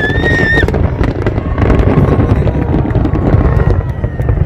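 Fireworks display: a continuous deep rumble of bursts with dense crackling throughout, and a high whistle that stops under a second in.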